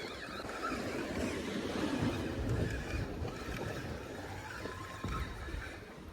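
Sea waves washing against the rocks, with wind buffeting the microphone. The wash swells in the middle and eases near the end.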